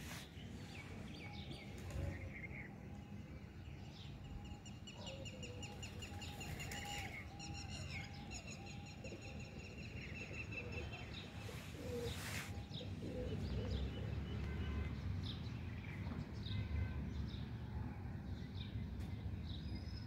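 Birds chirping and calling, with a fast, rattling trill from about two to nine seconds in, over a steady low rumble.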